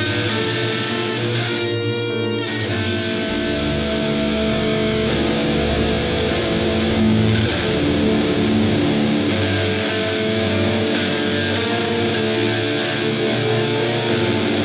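Distorted electric guitar, a Schecter Reaper tuned to drop D through Bias FX2 amp simulation, playing a dramatic improvised piece over a bass line and held chords, with a brief fast repeating figure about two seconds in.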